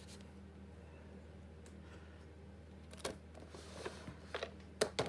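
Stamping supplies handled on a craft desk: a few light clicks and taps, starting about three seconds in and closer together near the end, over a faint steady hum.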